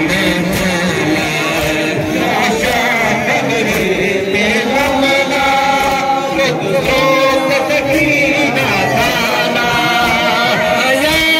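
Male voices chanting a Muharram nauha, a mourning lament sung in long, drawn-out melodic lines.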